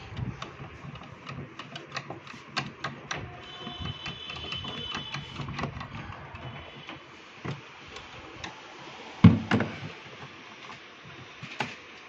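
Plastic interior panels of a refrigerator's freezer compartment being handled and pulled at: a run of light clicks and rattles, with one heavier knock about nine seconds in.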